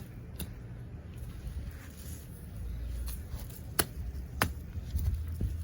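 A few sharp knocks of a tool chopping into a dead papaya tree's stump and roots, the two loudest a little over half a second apart about four seconds in.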